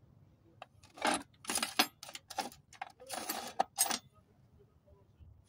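Small metal parts and hand tools clinking and rattling in about half a dozen short, sharp bursts over a few seconds as loose bolts and engine parts are handled.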